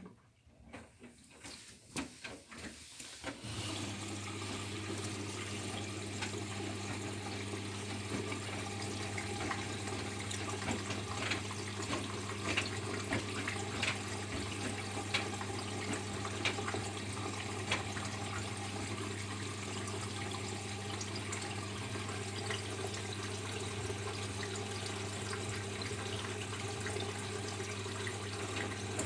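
Bosch Serie 6 washing machine moving water, with a steady low electric hum and water noise that start about three seconds in after a few clicks.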